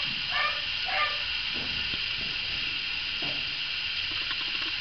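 Muzzled German shepherd dog giving three short barks through its muzzle in the first second, then a steady background hiss with faint scuffling.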